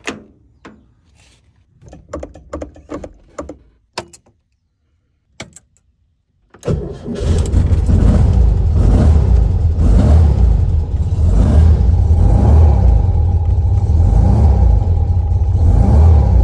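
Clicks and knocks of a 1958 Volkswagen Beetle's door latch and cabin as someone gets in, then about six and a half seconds in the air-cooled flat-four engine starts abruptly and keeps running steadily and loud.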